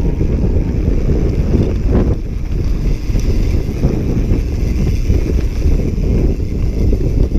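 Wind buffeting the action camera's microphone while a mountain bike rolls over a gravel and grass track, a steady low rumble with a brief knock about two seconds in.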